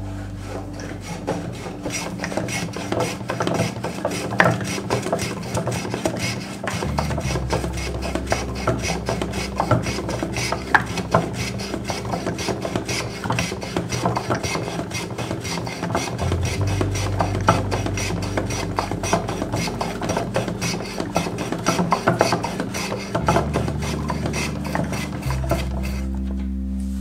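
A bookbinder's plough pushed rapidly back and forth along the cheeks of a wooden lying press, its blade shaving the paper edges of a clamped text block in a quick run of scraping strokes. Soft background music with low sustained notes plays underneath.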